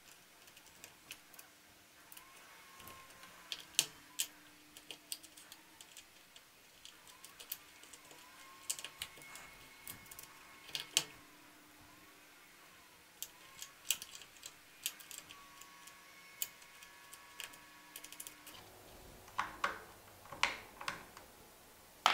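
Bare mechanical keyboard switches without keycaps, on an E-Dra EK3104, pressed one after another in irregular runs of sharp clicks. The switches are being tested to see whether the freshly hot-swapped ones register.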